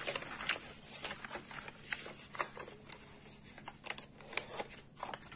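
A sheet of paper handled and folded by hand: irregular rustles and small clicks as the paper is creased.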